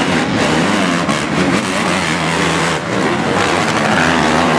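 Several motocross bikes' engines revving hard and changing pitch as they race through a muddy corner, many engines overlapping. A short drop in loudness about three seconds in.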